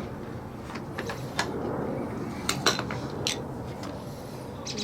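A few sharp metallic clinks and clatters of tools or parts being handled on the mower, over a steady low background noise.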